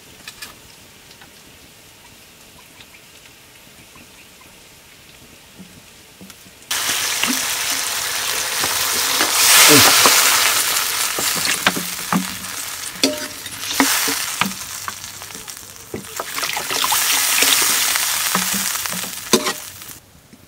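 Curry frying in hot oil with a loud sizzle and a utensil knocking and scraping in the pan while it is stirred. The sizzle starts suddenly about seven seconds in, after a quiet start, and stops abruptly near the end.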